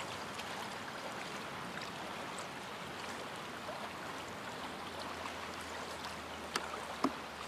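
Shallow river current flowing steadily around a wading angler, a continuous rushing and trickling of water. Two sharp clicks come close together about a second before the end, the second the loudest sound.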